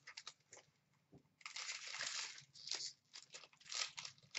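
Crinkling and tearing of a foil-wrapped Upper Deck Series 1 hockey card pack being opened by hand. It comes as several short rustles, with a longer one about a second and a half in.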